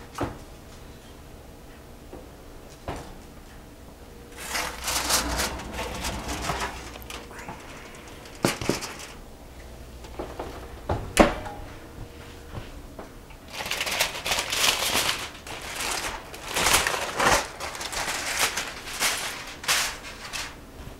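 Knocks and rustling as a foil-covered enamel roasting pan is taken out of the oven and set on a stone countertop, then aluminium foil crinkling for several seconds as it is peeled off the pan.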